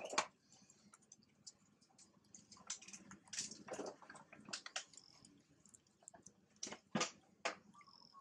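Faint, scattered soft clicks and smacks from the macaques, with two sharper clicks about seven seconds in.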